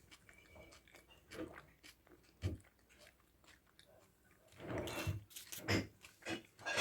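A person chewing and biting into a shawarma close to the microphone, in irregular bursts, with a louder cluster of bites about five seconds in.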